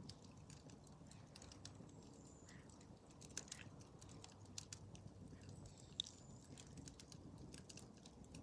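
Small fire of sticks burning, with faint, irregular crackles and pops.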